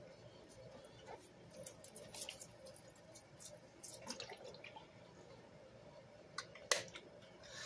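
Faint drips and small splashes of liquid squirted from a plastic squeeze bottle onto soap-soaked sponges in a plastic tub, with scattered light ticks and one sharp click near the end.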